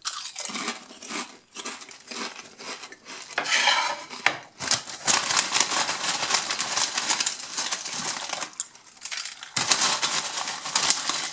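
Metallised potato-crisp packet crinkling and rustling as a hand rummages inside it, the crisps rattling against each other, with a short pause about three quarters of the way through.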